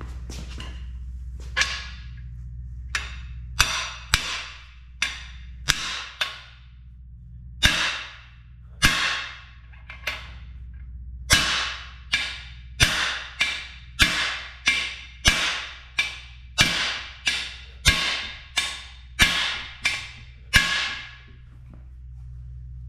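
Hammer blows on a cam bearing installer bar, driving a Dura Bond cam bearing into the cam bore of an aluminum LH6 5.3 LS block. The strikes come unevenly at first, then steadily about one and a half a second from about halfway in, each ringing briefly.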